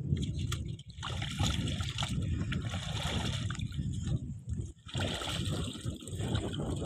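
Water splashing and trickling as wet water weeds are hauled up out of the shallows into a wooden boat, in uneven rushes with two brief lulls.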